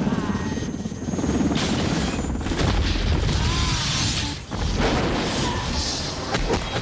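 UH-60 Black Hawk helicopter going down after being hit: a dense, heavy rumble of rotor and engine with booms, ending in the crash into the ground a little after six seconds.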